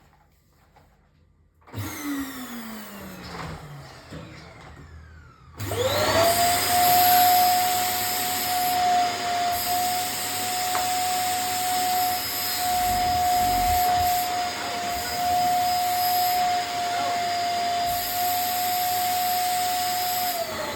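Vacuum cleaner motor starting up about five seconds in and spinning up quickly to a loud, steady whine. It runs at full speed, then is switched off near the end, its pitch falling as it winds down. A shorter falling whir is heard earlier, about two seconds in.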